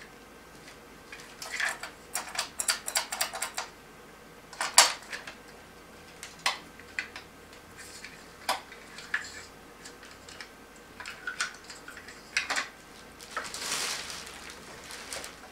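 Hard clinks and clicks of LED chandelier parts being handled as they are unpacked: a quick run of light clicks, a louder clack about five seconds in, then scattered single clinks. Near the end comes a short rustle of plastic wrap.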